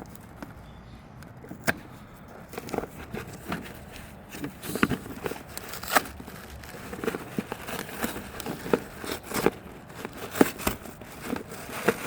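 Packaging being opened and handled by hand: irregular clicks, scrapes and crinkling rustles that get busier after about two and a half seconds.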